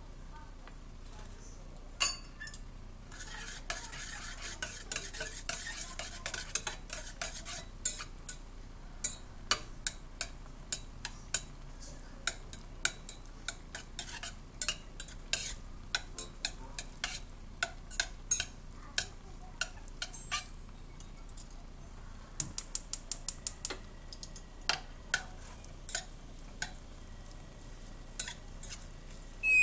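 Chopsticks stirring noodles in a stainless steel pot, clinking and tapping against its sides in many sharp, irregular clicks, with a quick run of taps a little over 22 seconds in. A hiss lies under the clicks for a few seconds near the start.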